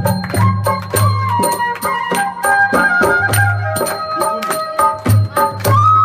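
Background music: a melody over a steady percussion beat with repeated deep bass hits.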